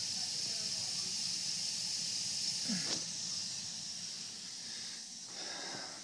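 Gas burners of a Utica steam boiler firing with a steady hiss and a low rumble. There is a brief knock about halfway through, and the hiss fades somewhat near the end.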